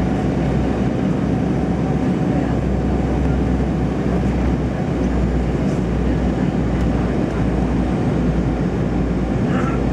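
Steady cabin drone of an Embraer 195 airliner in flight: its twin turbofan engines and the airflow make an even, low rumble with a faint steady tone above it.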